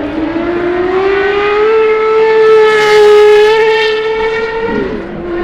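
GMA T50's naturally aspirated Cosworth V12 revving high under acceleration. Its pitch climbs over the first second or two, holds at high revs at its loudest, then drops sharply about five seconds in as the driver lifts off.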